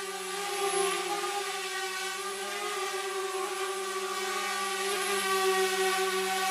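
Steady motor hum of the aircraft carrying the camera, holding one pitch with a stack of overtones and growing slightly louder over the last couple of seconds.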